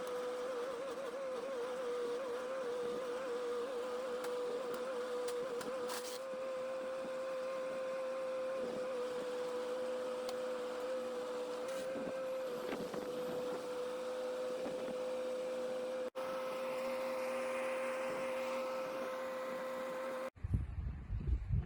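An engine running at a steady speed, a constant droning hum with no change in pitch. After a cut near the end, gusts of wind buffet the microphone.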